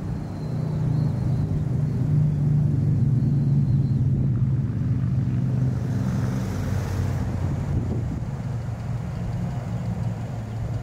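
Steady low drone of vehicle engines and traffic, with wind on the microphone. A brief higher rush of hiss comes about six seconds in.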